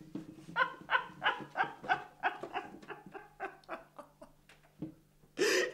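A man laughing in quick pitched bursts, about three a second, fading away over a few seconds; just before the end comes one short, loud breathy burst.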